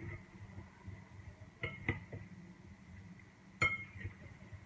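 A glass mixing bowl clinking as onion rings are mixed into batter in it: two quick clinks about a second and a half in, then a louder, briefly ringing one later.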